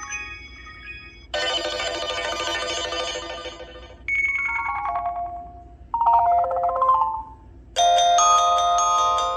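HTC Desire 510 preloaded ringtones playing one after another: a fading tail, then about four short electronic tunes of chimes and mallet-like notes. Each lasts a second or two and stops abruptly before the next begins; one is a run of falling notes, and the last, near the end, is a sustained bell-like chord.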